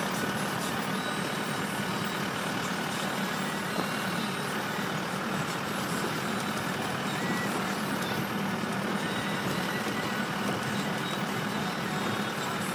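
Steady engine and road noise of a moving van, heard from inside the cabin.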